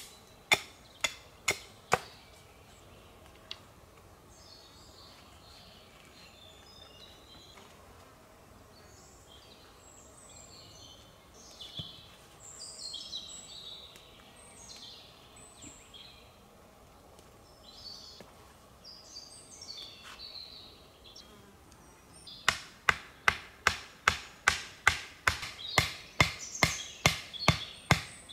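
Wood being chopped with sharp, ringing strikes, about two a second, which stop about two seconds in. A faster run of chops starts again about 22 seconds in. In between, a quiet stretch holds scattered high chirping calls.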